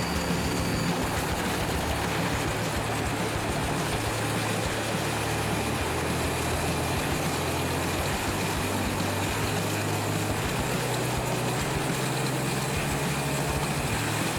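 Large wood chipper running: a steady engine drone with a shifting low pitch under a dense, even noise.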